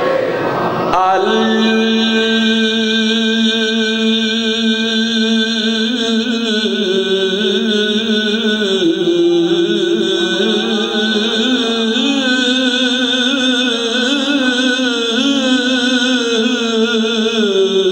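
A man's voice chanting a melodic religious recitation into a microphone, starting about a second in. It holds long drawn-out notes with wavering, ornamented pitch that steps down and back up.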